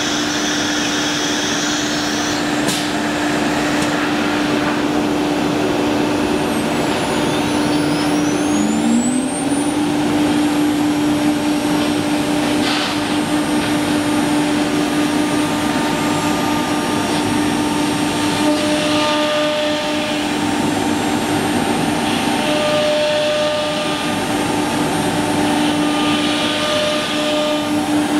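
The 9 kW spindle of a CNC woodworking router running with a steady whine while it cuts grooves in a board, over steady machine noise. About eight seconds in a second whine rises in pitch and settles on the same note, and there is a brief knock about thirteen seconds in.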